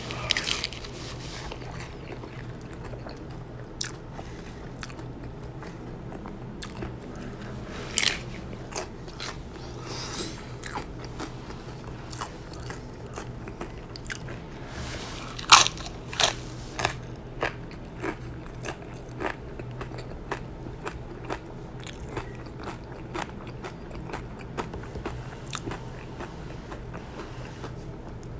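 Close-up biting, crunching and chewing of crunchy potato tacos (tacos de papa). Sharp crunches come all through, the loudest about eight seconds in and about halfway through, followed by a quick run of bites.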